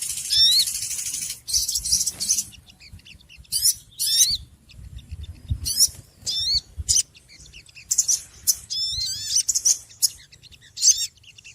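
Small birds chirping noisily: rapid high-pitched warbling trills and chirps in short bouts, many in quick succession, with brief pauses between.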